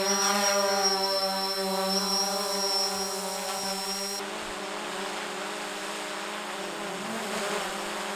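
DJI Phantom quadcopter drone's motors and propellers buzzing steadily, just after spinning up. A high whine in the sound stops about four seconds in, and after that the pitch wavers a little.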